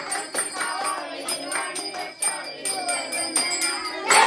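A Ganpati aarti being sung by the gathered family, with hand-clapping and jingling percussion keeping a steady beat.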